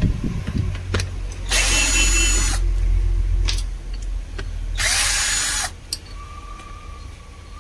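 A small handheld power tool runs in two short bursts of about a second each, roughly three seconds apart, with sharp clicks and knocks of handling between them.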